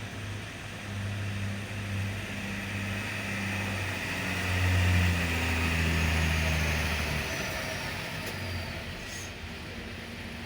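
Hyundai excavator's diesel engine running, its drone rising in level about four seconds in and easing back after about seven seconds, with a steady hiss over it.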